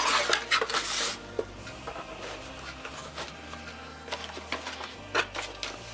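Rustling and handling of a cardboard pistol box and its paper contents as it is opened, loudest in the first second, then scattered taps and clicks, over soft background music.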